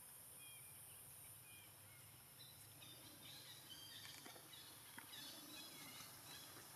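Faint forest ambience, close to silence: a steady high hiss with scattered faint bird chirps, busier in the second half, and a few soft clicks.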